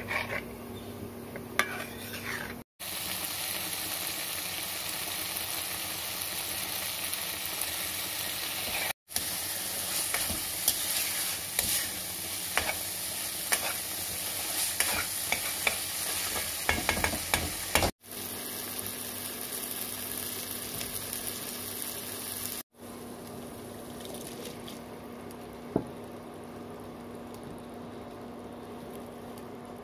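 Masala sizzling as it fries in oil in a kadhai, with a steel ladle stirring and scraping it against the pan; the fat is separating from the masala. The sound breaks off abruptly a few times and is quieter near the end.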